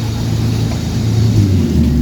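Tour boat's motor running with a steady low hum that drops in pitch about a second and a half in.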